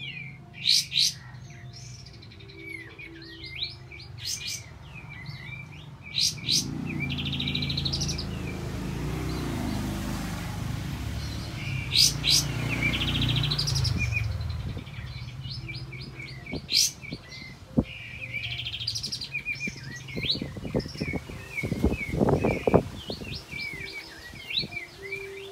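Sooty-headed bulbul singing: short chirps and whistled notes with fast rolling trills, over a low rumble in the middle. A run of sharp clicks comes near the end.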